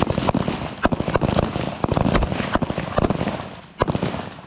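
M4 carbines firing a rapid, irregular string of 5.56 mm rifle shots on the range, each with a short ringing tail. The shooting thins out about three and a half seconds in, with one or two last shots near the end.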